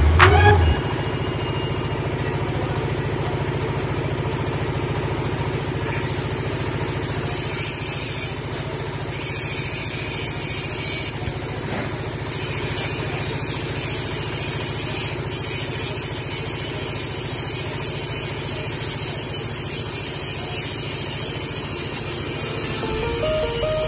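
Arc welding: the steady hiss and crackle of the welding arc over the constant hum of a running welding machine.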